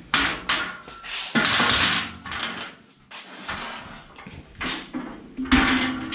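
Shuffling and handling noises, a run of short scraping rustles one after another. Near the end, a knock on the welded steel hatch lid leaves a low ring.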